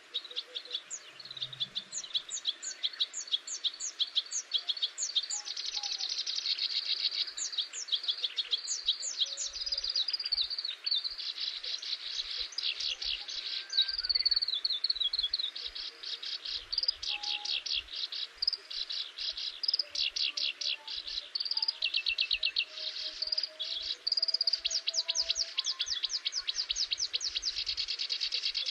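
Songbird singing: fast runs of high chirps and downward-sweeping notes, repeated several times a second almost without pause.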